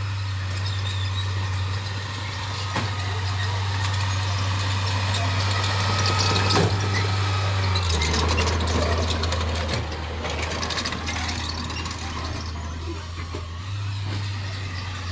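Heavy diesel engine of earthmoving machinery running under load, a steady low drone that drops in pitch about halfway through and rises again near the end, with clanks and rattle over it.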